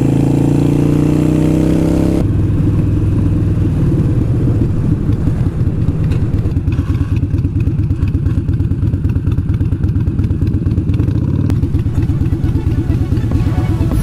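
Harley-Davidson Sportster's air-cooled V-twin running under way, steady at first, then dropping to a slow, lumpy putter with distinct firing pulses about two seconds in as the bike slows. The exhaust is working loose on its mount, which the rider later takes for the source of a weird noise he kept hearing.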